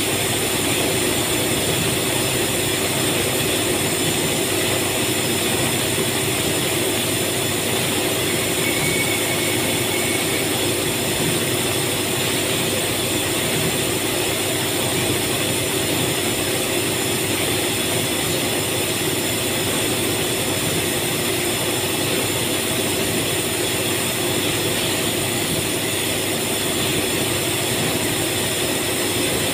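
Steady drone of factory machinery: a constant hum with several held tones over a wide hiss, unchanging throughout.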